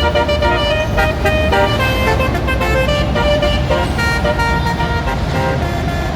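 Bus "telolet" horn: a set of multi-tone horns playing a stepping melody of held notes, over the low rumble of engines and traffic.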